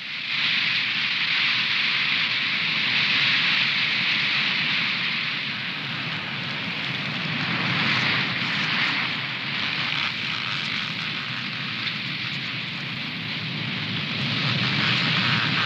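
Strong wind rushing through fir trees, a loud steady hiss that swells and eases in slow gusts.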